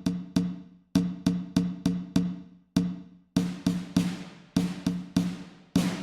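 Background music: a percussion track of sharp, evenly spaced hits, about three a second, each with a short low tone that rings away.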